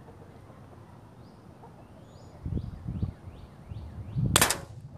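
A single shot from a Walther PPK/S blowback CO2 BB pistol near the end, a sharp pop and the loudest sound. Before it a bird chirps in a quick run of falling notes, several a second.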